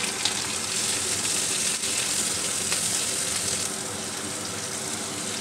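Sliced onions sizzling in hot mustard oil in a cast-iron kadai: a steady frying hiss that starts as they go in and eases slightly after a few seconds.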